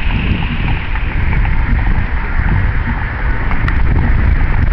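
Wind buffeting a handheld camera's microphone: a loud, steady low rumble with a few faint clicks.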